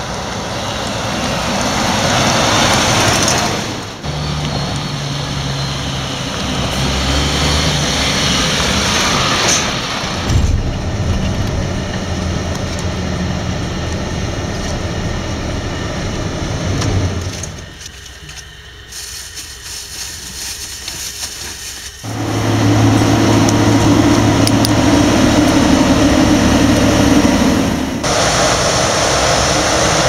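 Heavy diesel vehicles driving on the road in a string of short clips: a MAN truck passing, then diesel tractor engines running at steady revs. The sound changes abruptly several times, with a quieter stretch a little past halfway.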